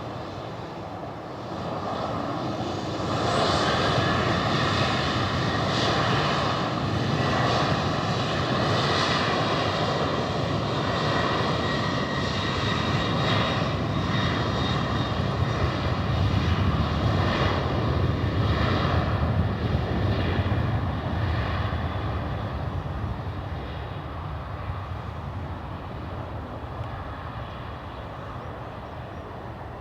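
Batik Air Malaysia Boeing 737-800's twin CFM56-7B jet engines at takeoff power. The jet noise builds over the first few seconds and holds loud with a whining fan tone. It then slowly fades after about twenty seconds as the jet departs.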